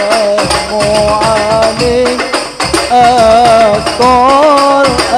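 Sholawat devotional music: a melody with wavering, ornamented pitch over a steady percussion rhythm.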